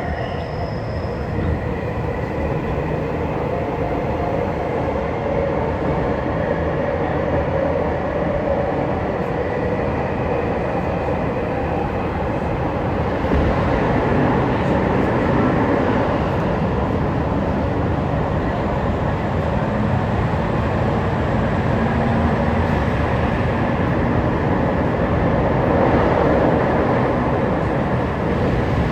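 Tokyu 5050 series electric train heard from inside the car while running: a steady rumble of wheels on rail and running gear, with a faint motor tone appearing briefly past the middle.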